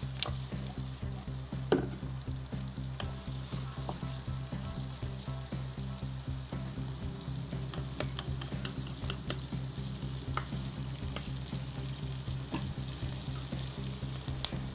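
Diced onion, tomato and bell peppers sizzling in hot oil in a nonstick frying pan while being stir-fried with a wooden spatula, which scrapes and taps the pan now and then. The peppers are frying until cooked. A steady low hum runs underneath.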